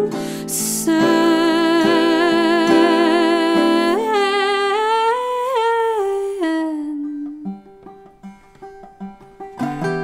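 A woman's wordless vocal line, held notes with vibrato, over plucked guitar in a live folk-band performance. She takes an audible breath just after the start. The melody rises twice, then falls and fades about seven seconds in, leaving a few quiet plucked guitar notes.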